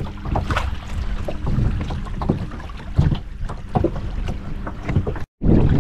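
Wind buffeting the microphone over small waves at a shoreline, with scattered light clicks and rustles from a nylon cast net being gathered in hand. The sound drops out briefly near the end and comes back with louder wind.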